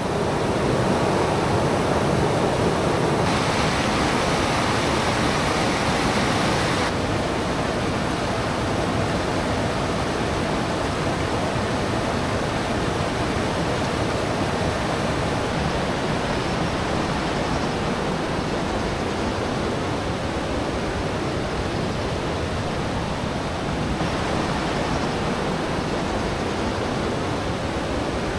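Steady rushing of a rocky stream's rapids, an even, unbroken water noise that shifts slightly in tone a few times.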